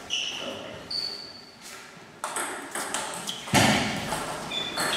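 Table tennis doubles rally: a ping-pong ball clicking off bats and the table, with several short high-pitched squeaks and ringing tones scattered through it. Voices and a louder burst of noise come in about three and a half seconds in.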